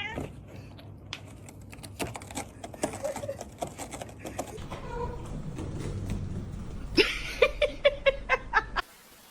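A domestic cat meowing, among scattered light taps and rustles. Near the end comes a quick run of seven or eight short calls, which stops abruptly.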